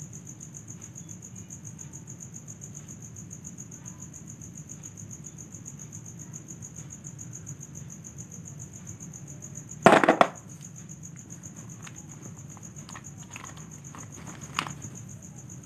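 Steady high-pitched trilling of insects. About ten seconds in comes a short loud plastic clatter as the plastic polar-bear toy figure is dropped into the plastic basket, followed by a few lighter clicks.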